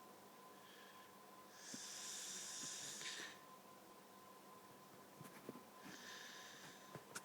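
A sleeping woman snoring: faint, long, airy whistling snore breaths, a strong one about a second and a half in and a shorter one near the end. The sleeper has a cold.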